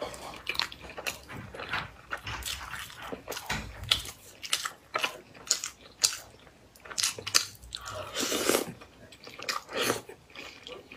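Close-miked eating: biting and chewing braised meat and rice, with many short mouth clicks at an uneven pace and a longer noisy sound about eight and a half seconds in.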